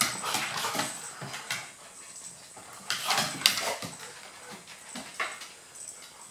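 Dogs at rough play: several short noisy bursts of panting and scuffling, the loudest about three seconds in.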